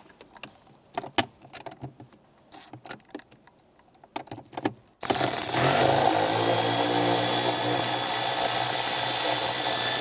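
A few light taps and clicks as a socket on an extension is fitted onto a nut. About halfway through, a power tool starts and runs steadily, spinning a 10 mm socket to loosen the shifter's front mounting nut.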